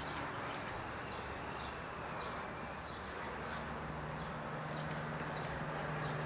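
Outdoor ambience: faint bird chirps over a steady background hiss, with a low steady hum coming in about halfway through.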